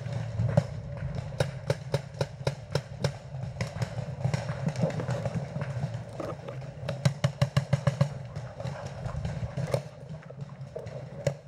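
Paintball markers firing, a string of sharp pops, with a quicker burst of shots about seven seconds in, over a steady low rumble.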